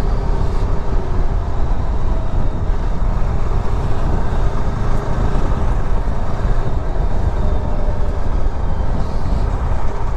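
Motorcycle on the move: a loud, steady rumble of wind on the microphone mixed with engine noise.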